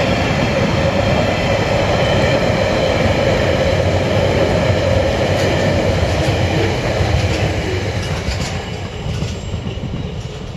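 Freight train wagons rolling past over the rails with a steady rumble and some sharp wheel clicks; the sound fades over the last few seconds as the tail of the train moves away.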